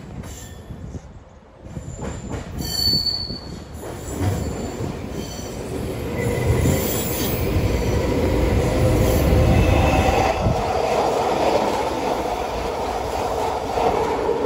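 Vancouver SkyTrain trains on the elevated guideway: one passes close by with rising wheel and rail noise, a brief high wheel squeal about three seconds in, and a steady whine under it as it goes by. A second train comes in on the other track near the end.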